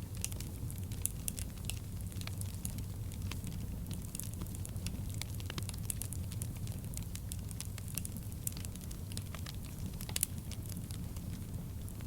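Wood fire crackling: many sharp pops and snaps at irregular intervals over a steady low rumble of burning.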